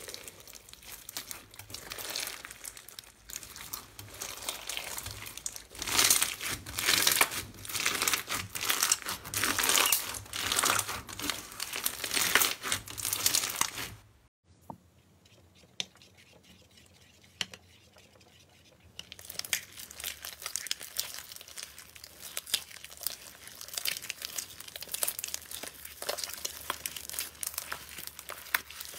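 Hands squeezing and stretching a crunchy bead slime (clear slime packed with pearl beads), giving loud crunchy crackling in waves. About halfway it goes almost quiet, then a quieter, finer crackle and popping follows as a pink slime is kneaded.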